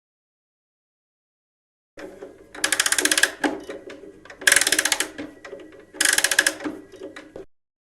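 A small machine clattering with very fast, even clicks, in three louder bursts with quieter clicking between them, starting about two seconds in.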